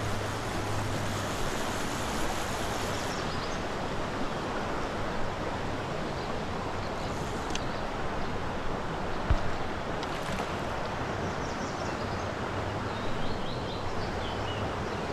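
Creek water rushing steadily around the wading angler, with a few faint knocks and a single sharper thump about nine seconds in.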